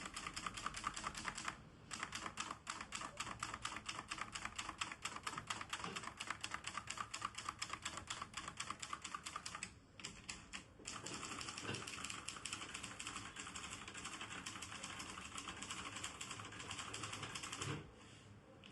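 Hermes Baby (Rocket) manual portable typewriter being typed on rapidly, a fast run of keystroke clacks with two short pauses. A low thump comes near the end as the typing stops.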